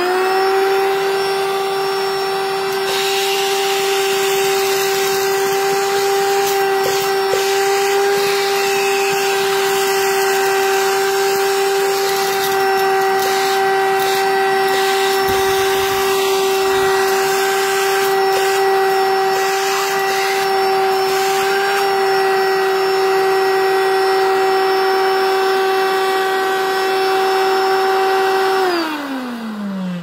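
MEIYOU cordless handheld vacuum cleaner running: a steady motor whine over a rush of air. Near the end it is switched off and the motor winds down in falling pitch.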